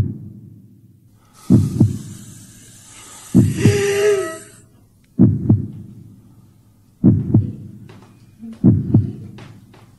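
Heartbeat sound effect: slow, paired low thumps, lub-dub, about every two seconds, five beats in all. From about one and a half to four and a half seconds in, a hissing swell with a faint wavering tone sits over the beats and then cuts off.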